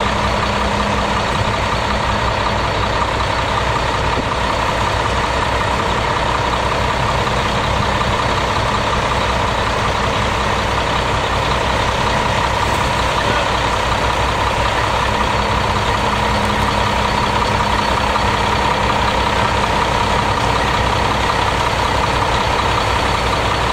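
Concrete pump truck running steadily during a concrete pour, a constant heavy engine-and-pump noise with a steady hum.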